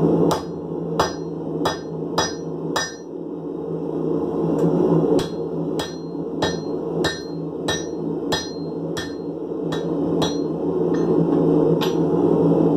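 Blacksmith's hand hammer striking a red-hot file blank held in tongs on an anvil, forging it into a kiridashi knife: about seventeen blows at roughly one and a half a second, with a short pause about three seconds in, each blow ringing briefly. A steady low hum runs underneath.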